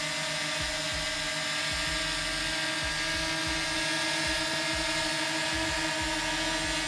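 Small quadcopter drone hovering just above the ground, its propellers and motors giving a steady high whine made of several held tones.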